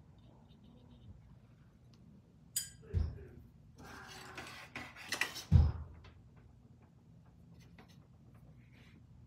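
Handling noise on a metal tabletop as a watercolour paint box is fetched and set down. A sharp click and a thud come a little before halfway, then a couple of seconds of rustling and clatter ending in a heavy knock.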